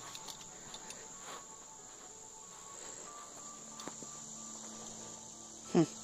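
Cicadas buzzing in a steady, high-pitched chorus, with a short louder sound that slides down in pitch near the end.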